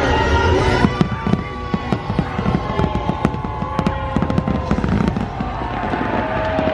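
Fireworks going off in a rapid series of bangs and crackles over show music with held notes.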